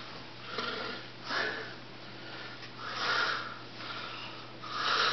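A person breathing audibly close to the microphone: about five soft, noisy breaths, roughly a second apart.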